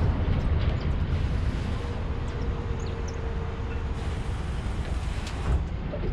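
Wind rumbling steadily on an action camera's microphone, with a faint steady hum for about two seconds in the middle.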